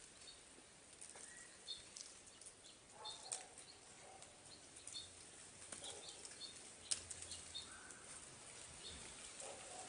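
Faint small-bird chirps now and then, with scattered light clicks, the sharpest about seven seconds in.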